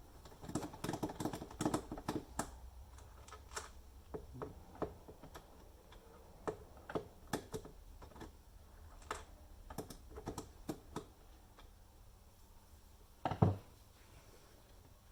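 Clicking and tapping of a homemade tool working at the security screws of an induction cooker: a quick flurry of clicks at first, then scattered single clicks, with one louder knock near the end.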